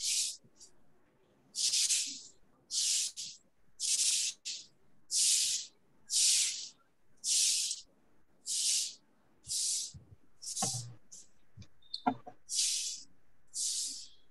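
Short bursts of high hiss, roughly one a second at an uneven pace, each about half a second long. Two knocks come late on, the second a sharp click that is the loudest sound.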